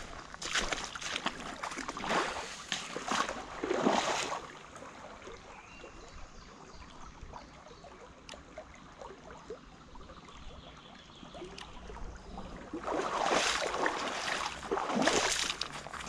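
Footsteps wading through a shallow stream, the water splashing and sloshing with each step, in a spell of about four seconds at the start and another of about three seconds near the end. In between it is quieter, with the stream trickling gently.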